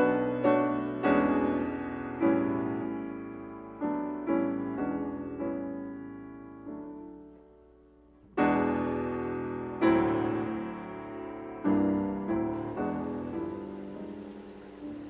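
Background piano music: slow notes and chords that ring and fade. The playing dies away about seven seconds in, then resumes with a strong chord.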